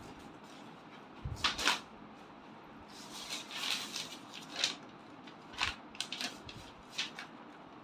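Sheets of paper rustling and flapping as a small child picks them up and flips them, in several short bursts.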